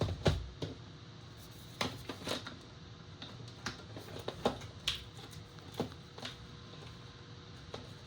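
Irregular clicks and light knocks, about ten of them, from a Lenovo ThinkBook 16 laptop being handled. The first is a low thump, and it is the loudest.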